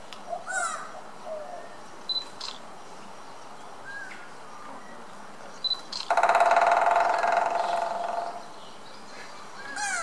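Lineated woodpecker drumming on a dead tree stump: one fast roll lasting a little over two seconds, starting about six seconds in.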